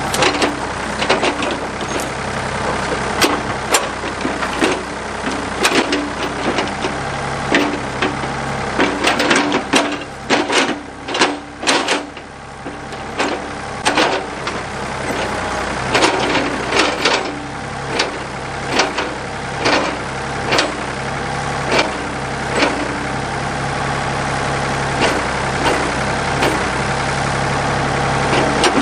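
Backhoe diesel engine running steadily, with a brief dip in engine sound near the middle, under many sharp, irregular knocks and clanks from the digging work.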